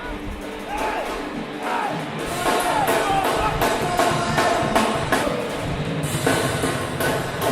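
Loud music led by a drum kit playing a steady beat, which gets fuller and louder about two seconds in, with a pitched melodic line above the drums.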